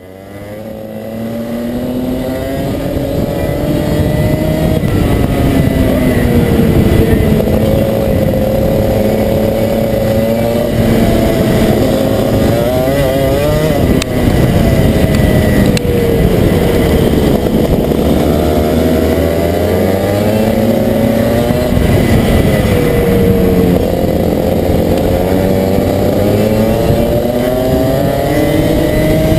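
Single-cylinder Rotax two-stroke kart engine heard on board, its pitch rising and falling again and again as it revs out and drops back through the laps. The sound fades in over the first few seconds.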